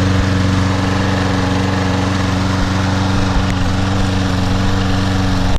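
Toro Super Recycler walk-behind lawn mower's small gasoline engine running steadily just after a cold start, with an even, unchanging drone.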